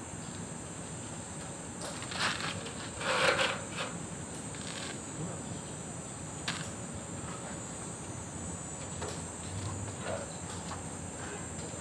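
Steady high-pitched insect buzz with a few scattered knocks; the loudest is a short clatter about three seconds in.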